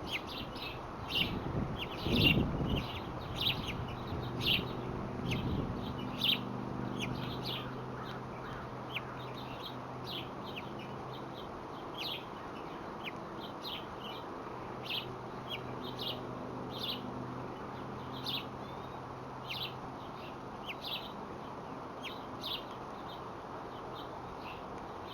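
Small birds chirping: short high chirps repeating about once or twice a second. A low rumble is heard in the first few seconds, and a faint steady low hum lies underneath.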